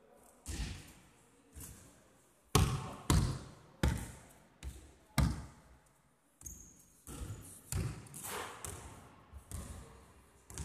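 Basketball bouncing on a wooden gym floor in an irregular run of sharp bounces, each ringing on in the hall's echo; the hardest bounces come in the middle.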